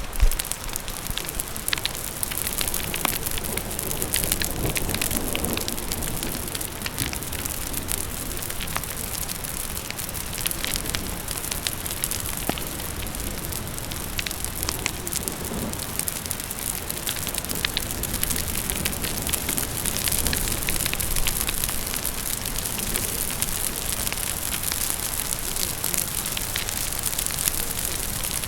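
Steady rain with a wood fire crackling over it, many small sharp pops scattered throughout and one louder pop just at the start.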